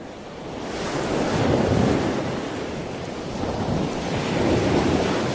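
Sea water rushing over rocks in swells, building over the first second and surging twice, once early and again near the end.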